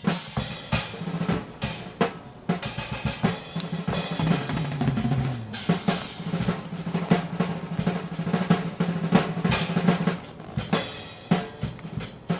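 Music driven by a drum kit, with rapid snare and bass drum hits over a held low note.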